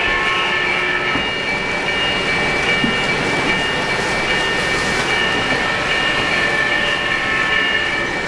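O-gauge three-rail model passenger train running past on the layout track: a steady rolling rumble of wheels and motors, with high steady tones that come and go.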